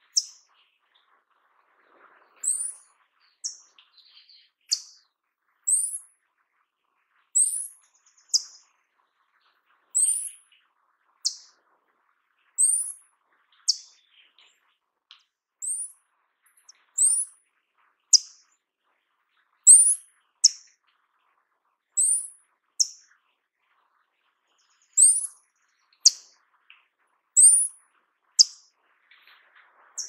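Paradise tanager calling: a long series of very high, thin, short whistled notes, about one a second, that sweep quickly upward and downward in turn.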